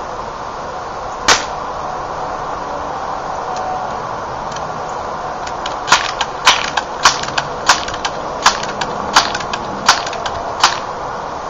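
Crosman PowerMaster 760 air rifle being pumped: a single sharp click about a second in, then a regular run of about eight sharp clacks from the pump lever, roughly two-thirds of a second apart, with lighter ticks between, as the pressure chamber is charged for a shot.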